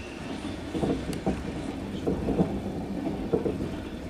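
Passenger train wheels rolling on the track, heard inside the carriage: a steady rumble with irregular knocks over the rails.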